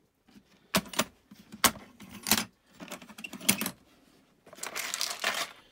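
A plastic toolbox being handled and opened: several sharp clicks and knocks from its latches and lid, then a second or so of clattering rattle near the end.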